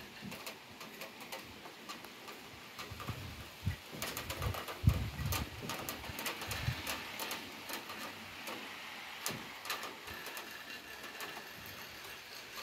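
Heavy rain: a steady hiss of falling rain with many sharp ticks and drips of drops striking hard surfaces, and a low thump about five seconds in.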